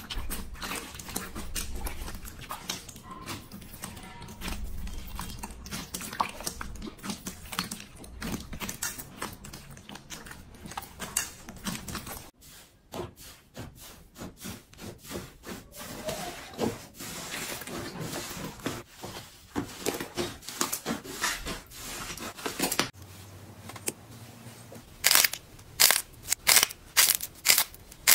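Slime being squeezed, pressed and poked by hand, giving a steady sticky crackling and popping. Near the end comes a run of loud, sharp crunches, about three a second.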